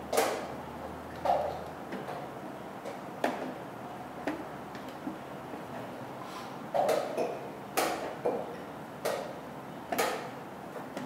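Wooden chess pieces being set down on a wooden board and the buttons of a digital chess clock being pressed: about six or seven sharp, irregularly spaced clicks and knocks.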